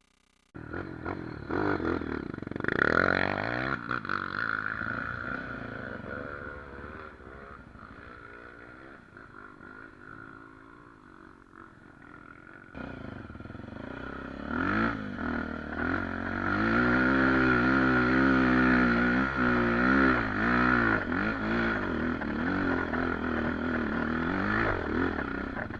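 Dirt bike engine revving up and down as it rides along a trail, quieter through the middle and louder and busier in the last third.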